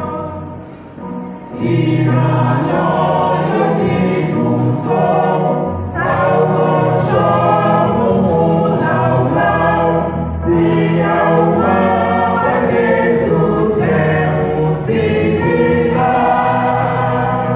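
Church choir singing a gospel hymn, many voices together in long sung phrases. A brief lull about a second in, then the full choir comes back in.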